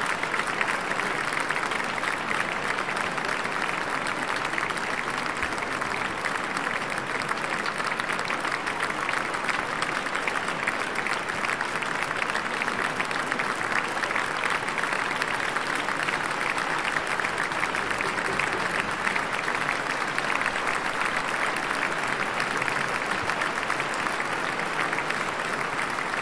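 A large concert audience applauding, a dense, steady clapping that holds at the same level throughout.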